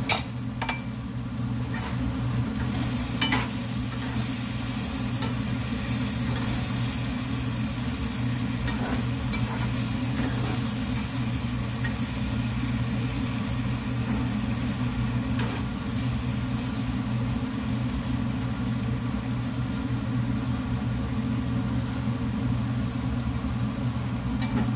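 Tomato masala sauce with milk just stirred in, sizzling in a non-stick frying pan as it is stirred with a spatula. A few sharp clicks of the utensil against the pan, the loudest at the very start and about three seconds in, over a steady low hum.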